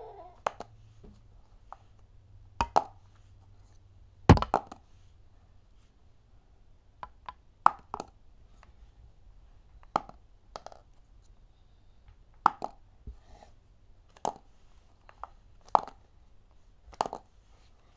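A plastic marker being flipped and landing again and again on a magazine: a sharp clack each time, often with a quick second bounce, about every one to two seconds, the loudest landing about four seconds in.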